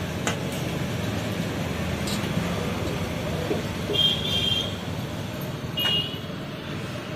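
Steady street traffic noise with two short vehicle horn toots, about four and six seconds in.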